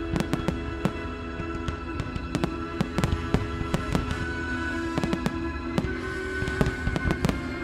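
Fireworks display: a rapid series of sharp bangs and cracks from shells bursting, over sustained music.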